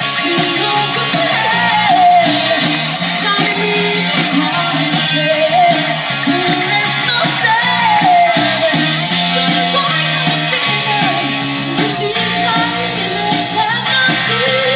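A song with a singer's voice carrying the melody over guitar and a repeating bass line.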